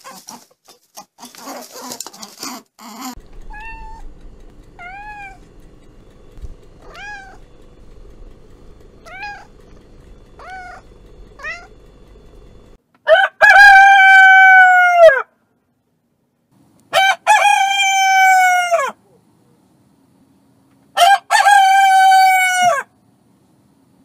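Rooster crowing three times, each crow long and loud, about two seconds apiece in the second half. Before the crows comes a run of about six short cat meows, each rising and falling in pitch, over a low steady hum, and the first few seconds hold a brief rustling.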